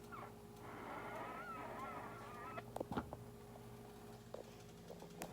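Cooking pot wheezing: a faint, wavering whistly wheeze, typical of steam escaping under the lid. It stops after about two and a half seconds and is followed by a few short clicks or knocks.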